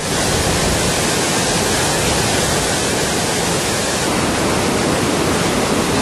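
Athirappilly waterfall in heavy monsoon flood: a large volume of water pouring over the falls with a steady, loud, even rush.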